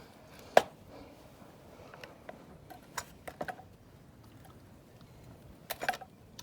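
A few sharp knocks and clicks: a loud one about half a second in, scattered lighter clicks through the middle, and a quick cluster near the end.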